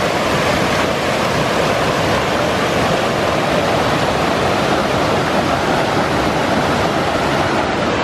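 Mountain river rushing steadily and loudly, heard from out in the middle of the stream.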